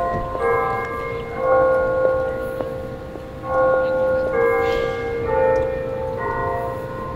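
Church bells ringing, with a new bell struck about once a second and each note ringing on into the next.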